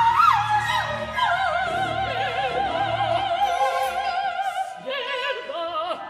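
Operatic soprano singing a birdsong-like line with wide vibrato. It swoops quickly at first, then holds a long high note, then sings shorter notes, over a low orchestral accompaniment.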